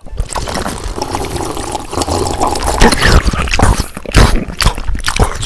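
Close-miked wet drinking sounds: liquid pouring, sloshing and dripping as a glassful is drunk, with many small wet clicks. It gets louder about two seconds in, with several heavier wet gulps in the second half.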